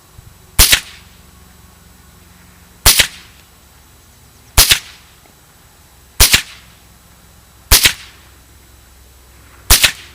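Ruger 10/22 semi-automatic rifle firing .22 LR rounds: six sharp shots, one every one and a half to two seconds.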